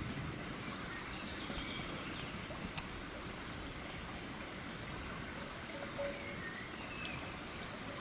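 Steady rush of a shallow stream, with a few faint bird chirps over it about a second in and again near the end.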